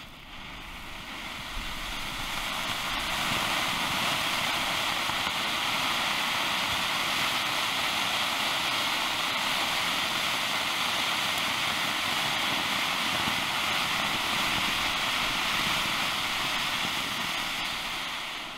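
Funke Riesenfontäne 1 ground fountain firework burning: a steady, loud hissing rush of sparks that builds over the first few seconds and dies away near the end.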